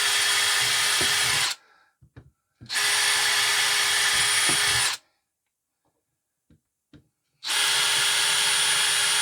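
Electric drill running in short steady bursts, boring blade-entry holes through 6 mm moisture-resistant MDF for the scroll saw's internal cuts. One run stops about a second and a half in, a second runs for about two seconds midway, and a third starts near the end, with faint clicks in the gaps.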